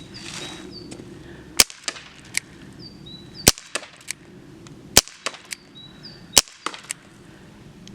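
ASG Dan Wesson 8-inch airsoft revolver, a CO2 gun, fired five times in a slow string, one sharp crack every one and a half to two seconds, with fainter clicks between the shots. Birds chirp throughout.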